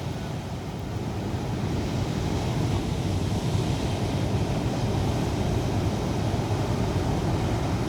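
Breaking surf and wind on the microphone, a steady noise that is heaviest at the low end and holds level throughout.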